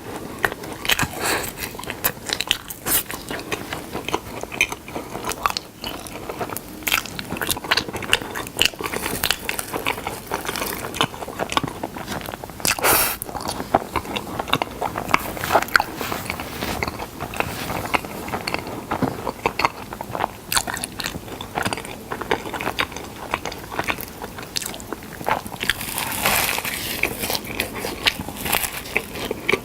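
Close-miked biting and chewing of honey: a dense, irregular run of small wet crackles and crunches.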